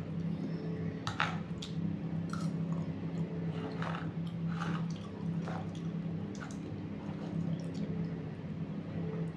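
Metal spoon clicking and scraping against a plate at irregular intervals as a person eats, over a steady low hum.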